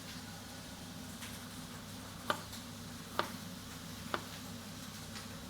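Kitchen knife slicing and knocking down onto a chopping board: a few sharp clicks about a second apart, over a steady low hum.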